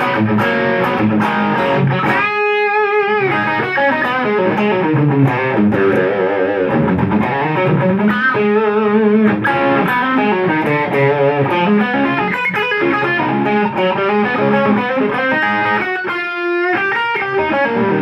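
Electric guitar with humbucking pickups played through an Idea Sound Product TS808 Tube Screamer-style overdrive pedal with its drive turned up high, into a Mesa Boogie amp: a continuous run of distorted riffs and lead lines. Two held notes with vibrato stand out, about two seconds in and near the end.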